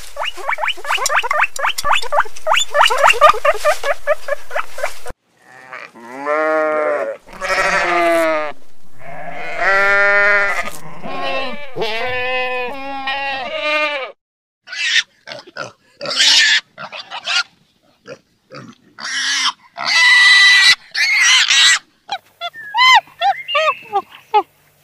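A string of different animal calls cut one after another: a run of rapid pulsed calls, then several drawn-out pitched calls, then harsh noisy calls, then short chirps near the end.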